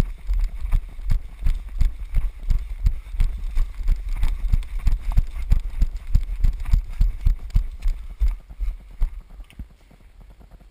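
Running footsteps of the camera wearer on the ground, a steady run of heavy thuds at about three a second with the camera jolting. They weaken and die away about eight seconds in as the runner slows.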